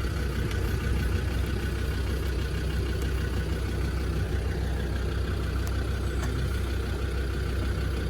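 Steady low engine-like drone, like a vehicle idling, with a few faint clicks over it.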